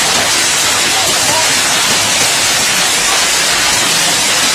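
Heavy hail pelting a wet concrete yard and plants: a dense, steady hiss of countless small impacts.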